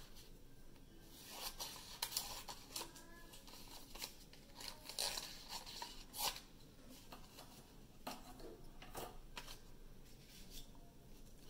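Scissors cutting paper in a series of irregular snips, trimming a small piece of paper down to size.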